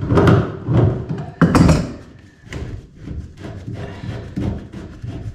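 Plastic basin waste trap and push-fit waste pipe being handled and pulled apart: a run of knocks and clicks, two sharp ones about one and a half seconds in, then lighter tapping.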